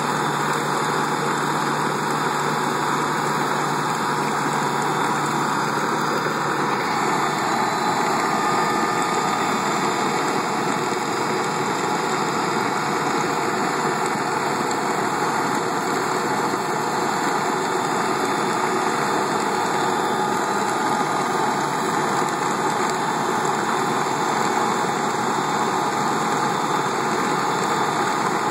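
Tractor-driven Lewis chain trencher at work: the tractor's engine runs steadily under load while the digging chain and side conveyor lift soil out of a drain trench into a dump bed. It is one even mechanical din with no breaks.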